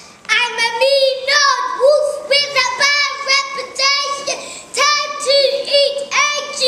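A young child singing in a high voice, in short phrases with brief breaks between them.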